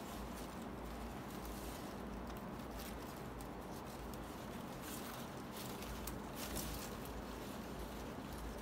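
Palm leaf strips rustling and scratching against each other as they are plaited by hand, in faint, irregular little bursts.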